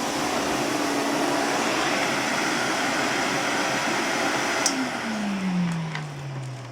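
1958 Hoover Constellation 86 canister vacuum running loudly and steadily, then a click about two-thirds of the way in, after which the motor's pitch falls and it winds down.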